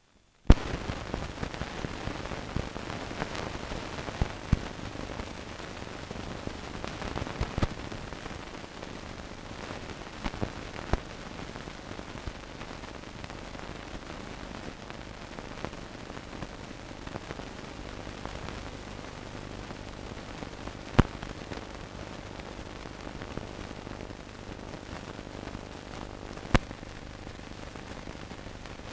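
Steady hiss with scattered crackle and a few sharp pops: the surface noise of an old optical film soundtrack with nothing recorded on it.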